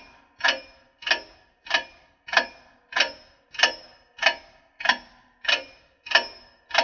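Ticking clock sound effect marking a countdown of thinking time: sharp, evenly spaced ticks with a short ring, about three every two seconds.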